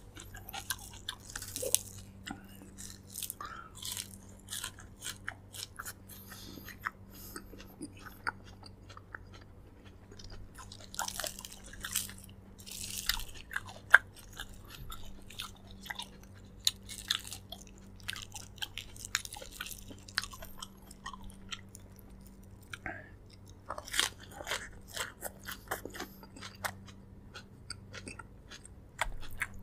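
Close-miked mouth sounds of someone eating braised pork leg: wet chewing, biting and lip smacks in irregular short bursts, with some crunching. A faint steady low hum runs underneath.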